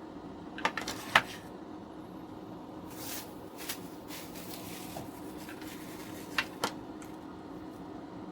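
Small hand tools and parts being handled on a workbench: a few sharp clicks and taps, the loudest about a second in and two more near the end, with a brief rustle between, over a steady low hum.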